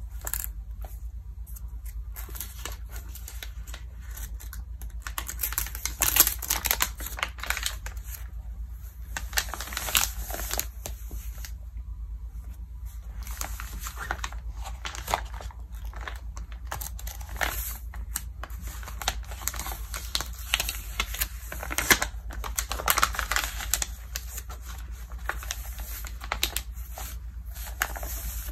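Glossy Vogue magazine pages being turned and smoothed flat by hand: crisp paper rustling and crinkling in short crackles, with louder bunches of page-turning a few seconds apart, over a steady low hum.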